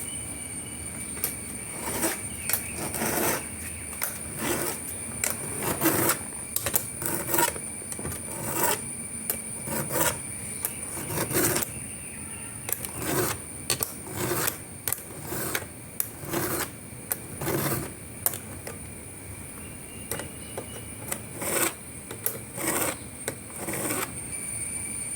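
A file rasping across chainsaw chain cutter teeth in a filing guide frame, one push stroke about every second.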